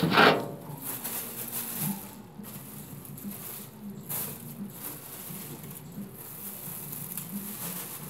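Rustling, light scraping and patter of debris being dug out of a cheap backyard grill by hand, with phone-handling noise on the microphone. A brief louder noise comes right at the start.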